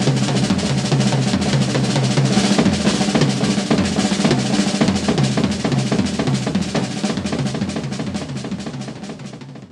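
Slingerland drum kit played in a fast solo: dense, rapid snare and tom strokes over bass drum, with the drums ringing underneath. It fades out over the last couple of seconds.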